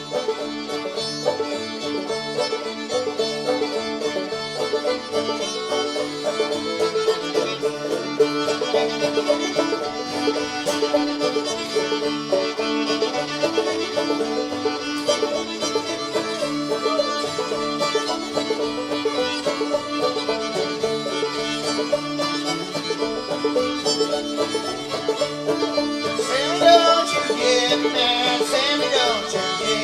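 Background string-band music with fiddle and banjo in a bluegrass, old-time style, with a steady drone under it and the fiddle sliding up and down near the end.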